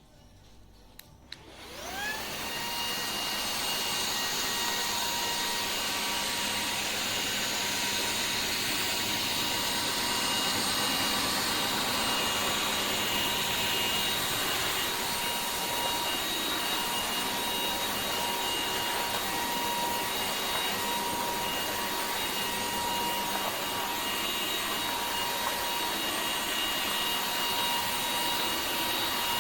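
Dreame H12S cordless wet-and-dry floor vacuum switched on with a click about a second in, its motor spinning up over about a second, then running steadily with a high whine over a strong rush of air.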